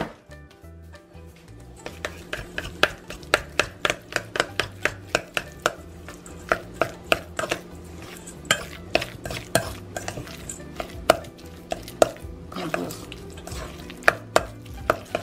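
Metal spoon stirring a thick ricotta, egg and cheese mixture in a stainless steel mixing bowl, clinking against the bowl about two to three times a second. A single sharp knock comes at the very start.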